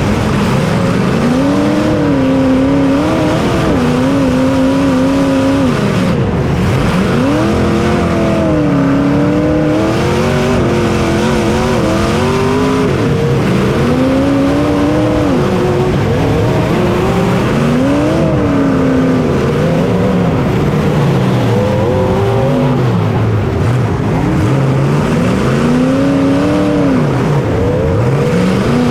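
Racing engine heard onboard, pitch climbing and dropping back again and again, every few seconds, as the throttle is worked through the turns of the track.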